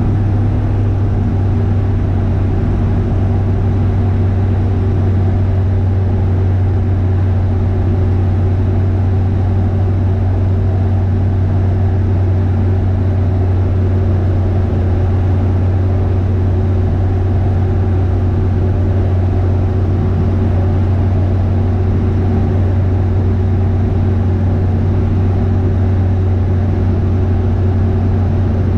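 Single-engine Tecnam light aircraft's piston engine and propeller droning steadily in flight, heard inside the cockpit, with a strong low hum that holds one pitch at constant power.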